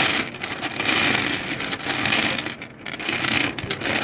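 Many small toy diamonds rattling and clattering against each other as they are handled, a dense run of small clicks with a short lull near the end.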